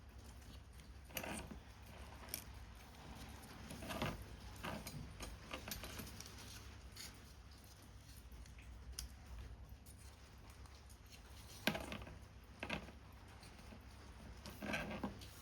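Paper-craft work sounds: about ten short, irregular snips, taps and rustles of card and paper being handled and cut, the loudest about a second in from the twelfth second, over a faint steady background hiss.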